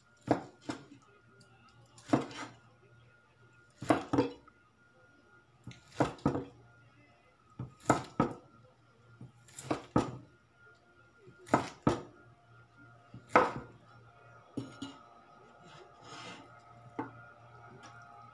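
Cleaver slicing through cooked pork and knocking on a bamboo cutting board: sharp knocks, mostly in pairs about every two seconds, with lighter knocks near the end.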